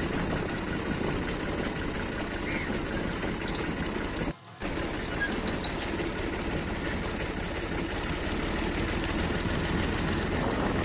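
Tractor's diesel engine running steadily as the tractor drives along a dirt track, heard from the driver's seat. The sound briefly cuts out a little over four seconds in.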